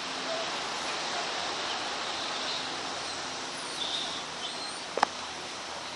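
Steady outdoor beach ambience, an even rushing noise, with a few faint high bird chirps and one sharp click about five seconds in.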